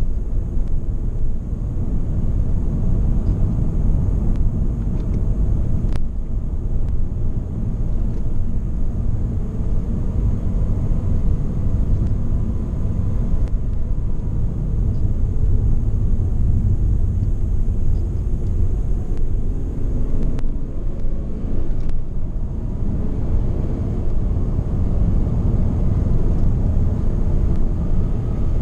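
Ford Mondeo ST220's 3.0 V6 in steady, relaxed driving, heard from inside the cabin, where a steady low road and tyre rumble drowns out most of the engine.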